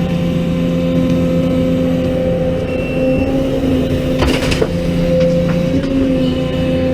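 A heavy machine's diesel engine running steadily under load, with a brief metallic clatter about two-thirds of the way through.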